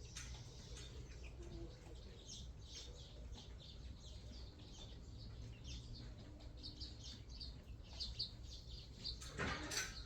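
Small birds chirping in quick, scattered calls over a steady low hum, with a short rushing noise about nine seconds in.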